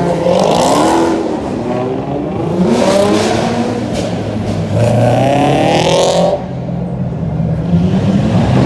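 A car engine revving hard, its pitch climbing and falling back about three times, typical of a car doing stunts at a street takeover.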